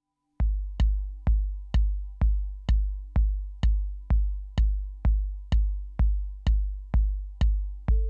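Drum-machine kick drum from a Korg Volca hardware rig, starting about half a second in and then playing a steady four-on-the-floor beat at about two kicks a second, each low thud dying away before the next. A faint held synth drone sits under it.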